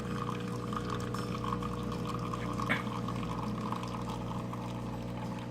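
Miele CVA 6800 built-in coffee machine dispensing coffee into a cup: a steady pour over the machine's constant hum, with one short click about halfway through.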